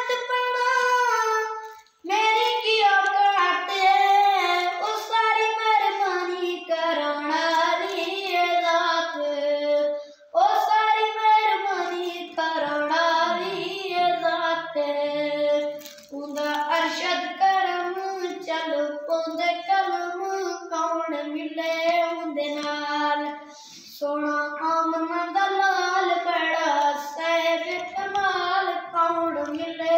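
A boy singing a naat unaccompanied, in long melodic phrases with short breaths between them every six to eight seconds.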